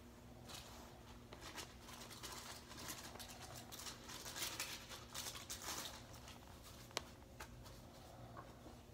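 Faint, irregular scuffing and fabric rustling as sock-covered sneakers shift on a hard floor, busiest in the middle, with one sharp tick about seven seconds in. A steady low electrical hum sits underneath.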